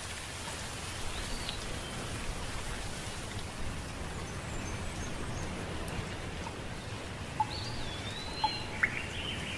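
Steady outdoor background hiss with a few faint, high chirping calls, one about a second in and several in the last few seconds. A few light taps come near the end.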